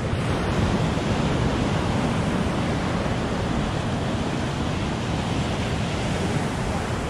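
Steady rush of ocean surf breaking and washing over a rocky shoreline.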